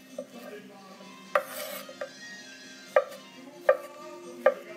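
Chef's knife slicing zucchini into sticks, the blade knocking on a wooden cutting board. About half a dozen sharp knocks come at an uneven pace, roughly one a second, four of them louder than the rest.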